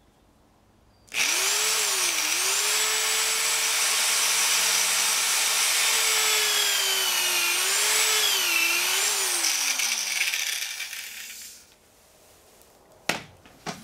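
Corded electric drill boring down into a laminated wooden keel: the motor starts about a second in and runs steadily, its pitch dipping now and then, then winds down with a falling whine and fades. Two sharp knocks follow near the end.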